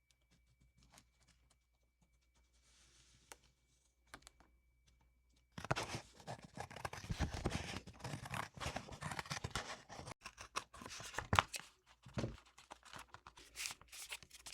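Tape being pulled off the roll, torn and pressed down for a tape mod on a keyboard's circuit board. After a quiet start it becomes a dense run of crackling, tearing noises about five and a half seconds in.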